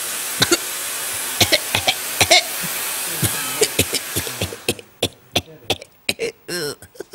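Fog machine jetting smoke with a steady hiss that cuts off about four and a half seconds in, with coughing and spluttering through it and after it.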